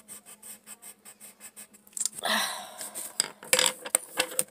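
Colored pencil scribbling on paper in quick back-and-forth strokes, about six a second. About two seconds in comes a louder rustle, then several sharp clicks and clatters.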